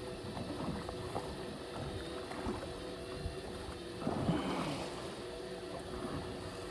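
A steady motor hum aboard a fishing boat, with wind gusting on the microphone. A splash of water against the hull comes about four seconds in.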